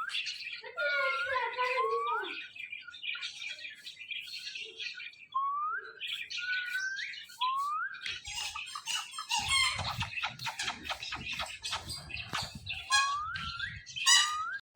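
Indian ringneck parrot giving a series of short, high squawks and chirps, each a quick pitch sweep. Partway through, a low rumbling noise with clicks runs under the calls for several seconds.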